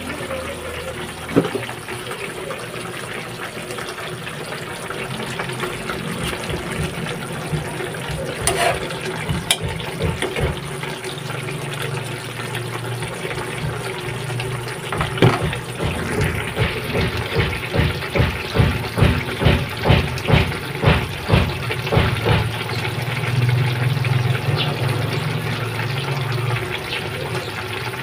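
A pan of bulanglang vegetable soup bubbling on a gas burner, a steady watery bubbling. Past the middle, a run of louder regular pops comes about twice a second for several seconds.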